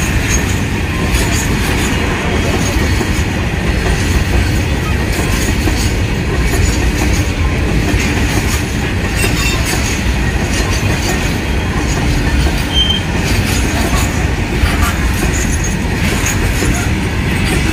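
Freight train wagons rolling past close by: a steady, loud, heavy rumble of steel wheels on rail, with clattering clicks as the wheels cross rail joints.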